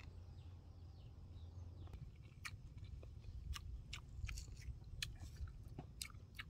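A person chewing a mouthful of food, with scattered faint crunching clicks that come more often in the second half, over a steady low rumble.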